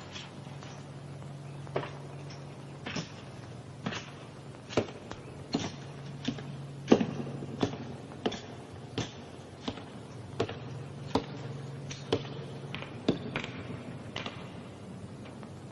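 Slow, evenly paced footsteps of hard heels on a floor, about one step every three-quarters of a second, over a steady low hum.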